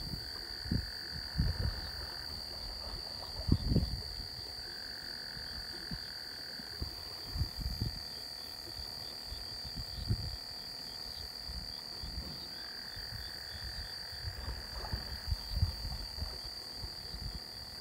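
Night chorus: insects keep up a steady shrill trill, and a lower frog-like trill comes in three times for about two seconds each. Scattered low knocks and rumbles from the phone being handled.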